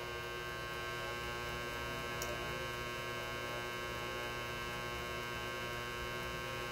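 Steady electrical mains hum, with one faint tick about two seconds in.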